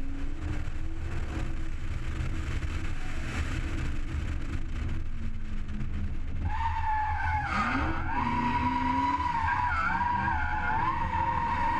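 Toyota Supra drift car running hard through a drift run, its engine note under loud tyre and road noise. About halfway in, a high, wavering tyre squeal sets in and carries on as the car slides.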